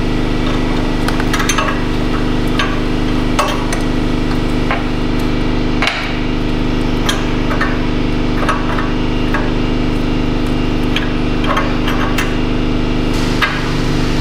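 Irregular metallic clicks and clinks of a 7/8 in. stubby wrench working on a newly threaded oxygen sensor as it is run down snug. A loud, steady, low machine hum runs underneath.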